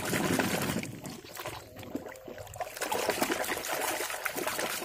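Muddy puddle water sloshing as a plastic toy truck is swished back and forth through it by hand. It is louder in the first second, drops off, and picks up again about three seconds in.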